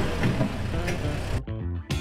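Background music with steady held notes. For the first second and a half a rushing noise runs under it, then stops abruptly.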